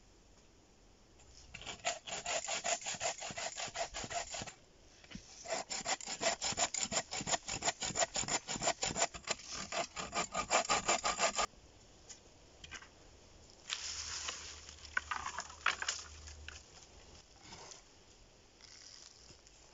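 Small hand bow saw cutting through a thin birch pole in quick back-and-forth strokes, in two runs with a short break between. After a pause, a shorter burst of scraping and rubbing follows near the end.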